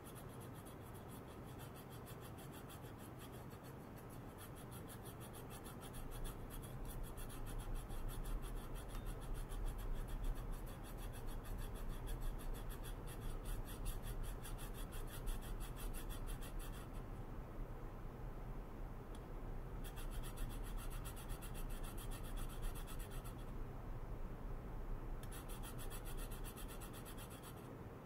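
A thin hand tool scraping and rubbing on a small metal workpiece. It starts about six seconds in and runs until shortly before the end, over a low hum.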